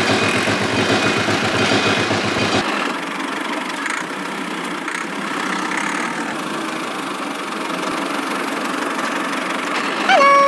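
A small motor-driven machine running steadily with a rapid pulsing, engine-like sound. About two and a half seconds in, the sound changes abruptly to a thinner, steady hum. Near the end comes a brief, loud pitched tone.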